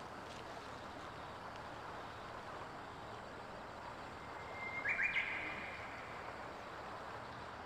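Steady outdoor ambience, an even hiss of open countryside, with a short, high bird chirp about five seconds in.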